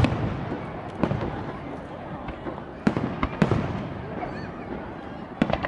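Aerial firework shells bursting: sharp bangs about a second apart, with two close together near three seconds and another near the end, each trailing off into an echoing rumble and crackle.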